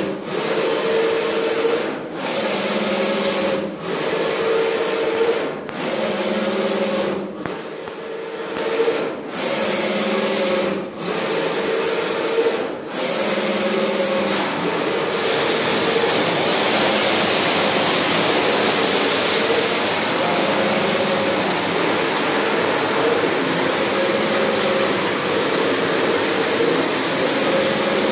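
Flat-bed screen printing machine's squeegee carriage running back and forth across the screen, its drive whining in strokes of just under two seconds with a brief dip at each reversal. About halfway through, a steady loud hiss comes in and runs on under the fainter carriage strokes.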